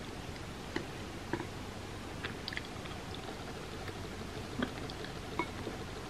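A person chewing a soft, sweet hotteok pancake topped with ice cream, with small wet mouth clicks and smacks scattered irregularly over a steady background hiss.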